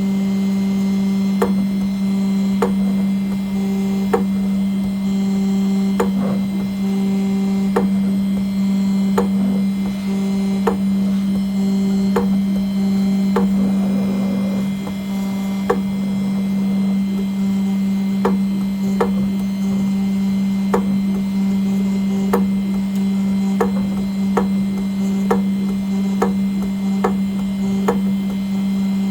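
CNC engraving machine running while it cuts aluminium. A steady hum is overlaid with sharp ticks about once a second, and a higher short tone keeps switching on and off.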